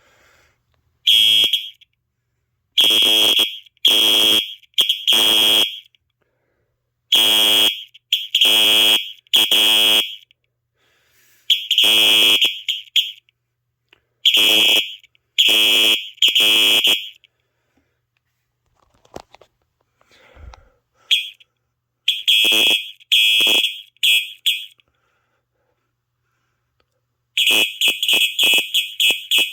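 Simplex 4903 fire alarm horn sounding in groups of three short, high-pitched blasts with pauses between, the temporal-three evacuation pattern. Near the end it switches to fast pulsing of several beats a second.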